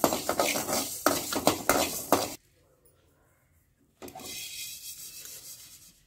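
Spatula scraping and stirring fenugreek seeds as they dry-roast in a metal kadhai, in quick repeated strokes that stop abruptly about two and a half seconds in. After a short silence, fainter rustling follows for about two seconds.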